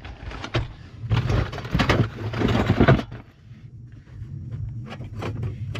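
Rummaging in a car's rear cargo compartment: rustling, knocks and thumps as a box and gear are moved and put back, busiest for the first three seconds and then dropping to a few light clicks, over a steady low rumble.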